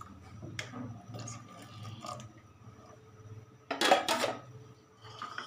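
Metal ladle stirring a thick broth in a metal pot, with small scrapes and clicks, then a louder clatter about four seconds in as the ladle knocks against the pot. A low steady hum runs underneath.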